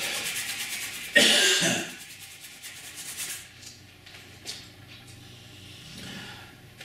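Paintbrush scrubbing thinned paint onto a canvas in quick rhythmic strokes, broken about a second in by a loud cough; after that only faint, occasional brushing.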